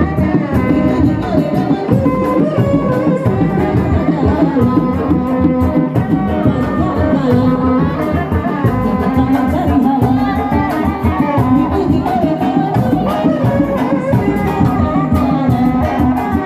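Kuda lumping accompaniment music from a Javanese folk ensemble: hand drums and rattling percussion struck in a fast, steady pattern under continuous melodic lines.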